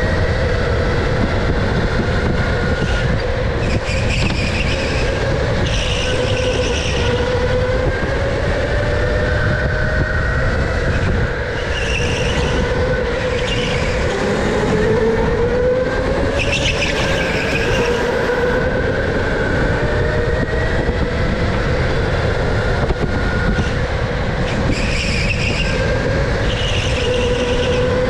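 Electric go-kart running at race speed, heard from an onboard camera: the electric motor's whine rising and falling with speed over a heavy rumble of road and wind noise. Short bursts of tyre squeal recur every few seconds through the corners.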